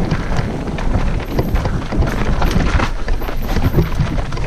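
Mountain bike riding down a rough, rooty trail: tyres and frame knocking and rattling irregularly over a steady low rumble.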